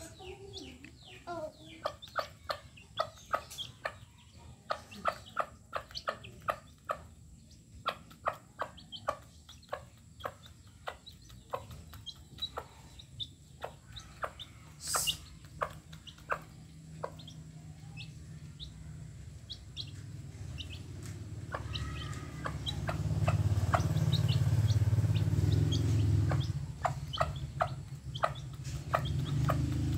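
An ayam kampung hen and her chicks pecking rice off concrete: a long run of quick, sharp beak taps, with the chickens' soft clucks and peeps. From about twenty seconds in, a low rumble swells up underneath and becomes the loudest sound.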